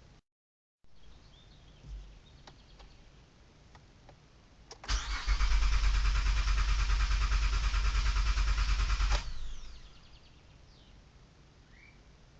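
2008 Honda Odyssey's 3.5-litre V6 being cranked by the starter for about four seconds with a fast, even rhythm, without catching, then cutting off and winding down: the van won't start.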